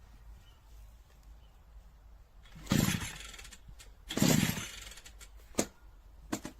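Two pulls on the recoil starter cord of a FUXTEC FX-MT152E petrol multi-tool, about a second and a half apart, each a short rasping whirr. The engine does not catch, and a few sharp clicks follow.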